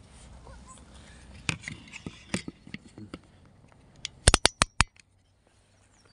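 Handling noise as a camera is moved about against clothing: fabric rustling and scattered knocks, with a quick run of five sharp clicks about four seconds in.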